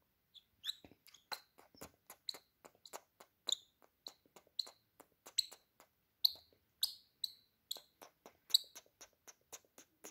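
Lovebird chattering in a long, fast run of sharp, shrill chirps, about four a second without a break. This is the long 'ngekek' chatter that keepers use as a trigger call to set other lovebirds calling.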